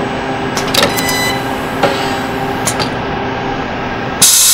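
Resistance spot-welding station with a rivet feed system, played over a hall's speakers. It gives a steady mechanical hum with a few clicks and a brief buzzing rattle about a second in. Near the end comes a loud burst of air hiss lasting about half a second.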